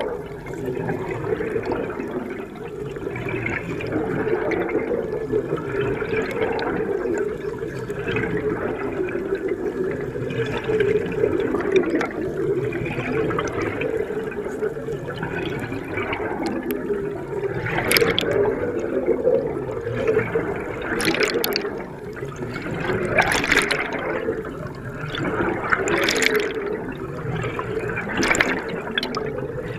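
Water churning and gurgling without a break, with several sharp crackles in the second half.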